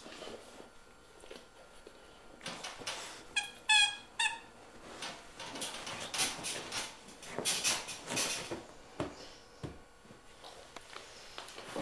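Golden retriever scrambling with a toy ball: a quick run of short, high squeaks about three and a half seconds in, then several seconds of scuffling and rustling movement.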